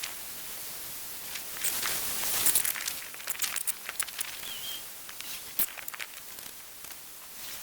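Steady outdoor hiss of flowing river water, overlaid by scattered rustling and crackling clicks, with one short falling bird chirp a little past the middle.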